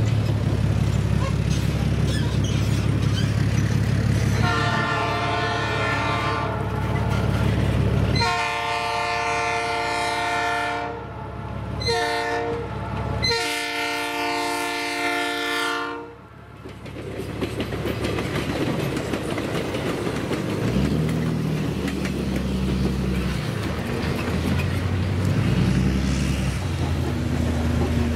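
Budd Rail Diesel Cars (an RDC-3 and RDC-1) running up to a grade crossing on their diesel engines and sounding a multi-tone horn in the crossing signal: long, long, short, long. The rail cars then rumble past, and near the end a pickup truck towing a trailer drives by.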